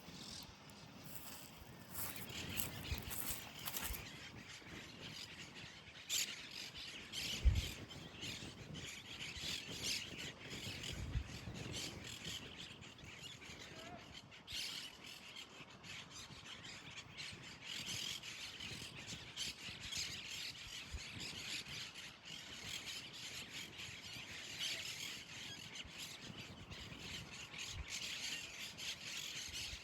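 Birds chirping and calling throughout, with voices and a few low thumps.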